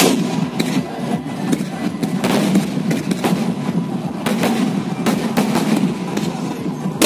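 Fireworks going off: sharp bangs and crackles at irregular intervals, several a second at times, over a steady background din from the crowd.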